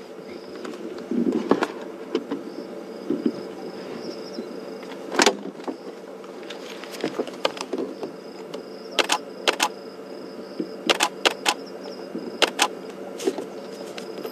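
Night bush ambience: a steady low hum and a thin, high, steady insect trill, with a scatter of sharp clicks and knocks at irregular intervals, most of them in the second half.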